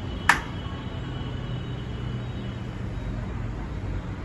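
A single sharp click from a uPVC sliding-folding door's panel hardware about a third of a second in, as a panel is worked by hand, over a steady low rumble.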